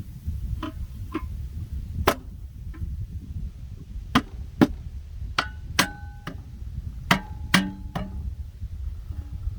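Irregular metallic clanks and knocks, about a dozen, several ringing briefly like struck steel, from metal car parts and tools being handled while the car is jacked up, over a low steady rumble.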